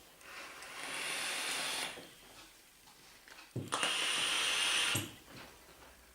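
Two long breathy hisses of vaping on a dripping atomizer, each lasting a second and a half or so, with a faint steady whistle running through them; the second is louder.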